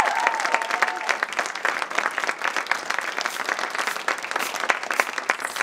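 Audience applauding, dense and steady clapping, with a whoop from the crowd in the first second.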